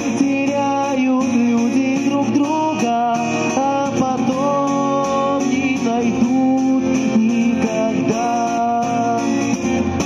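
A man singing a slow song with long held notes while strumming an acoustic guitar, voice and guitar amplified through a small portable amplifier.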